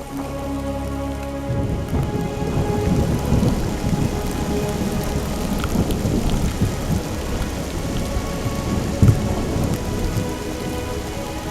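Heavy rain falling, with a long rolling rumble of thunder that builds about a second and a half in and peaks around nine seconds in.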